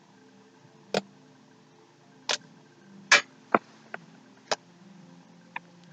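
Homemade slime being squeezed and pressed by hand, giving a string of sharp clicks and pops, about seven spread irregularly over several seconds.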